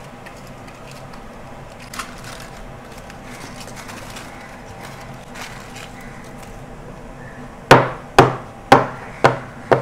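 Aluminium foil being peeled off a chilled sesame roll, a faint soft rustle. Near the end come five sharp knocks on a wooden chopping board, about two a second.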